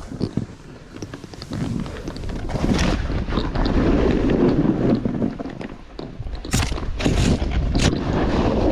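Wind buffeting the microphone on a run down a snowy slope, with the hiss and scrape of the skis or board on snow. A few sharp scrapes or knocks come near the end.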